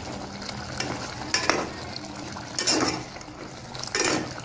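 Steel spoon stirring chicken in yogurt gravy in a metal pot over high heat, scraping the pot three times, about once every second and a half, over a low frying sizzle. The korma is being fried down on high flame.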